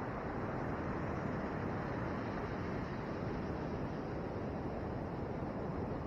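Ocean surf breaking on the beach, mixed with wind on the microphone: a steady rushing noise with no distinct events.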